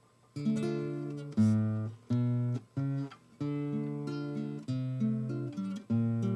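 Acoustic guitar strumming chords, each struck and left to ring, as the instrumental lead-in to a song. It starts about half a second in.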